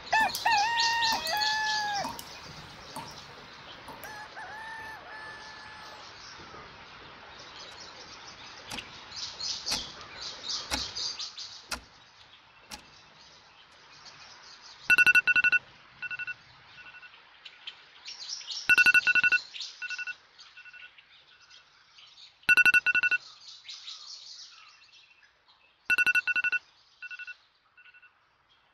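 A rooster crows loudly at the start and more faintly a few seconds later, with small birds chirping. From about halfway an alarm goes off, a loud electronic beep followed by a few shorter ones, repeating four times roughly every four seconds: a morning wake-up alarm.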